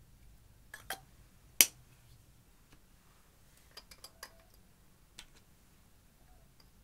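A few light clicks and taps of plastic makeup tubes and jars against glass baking dishes, the sharpest about one and a half seconds in. A quick run of small clicks follows around four seconds in as a small jar of loose pigment is opened.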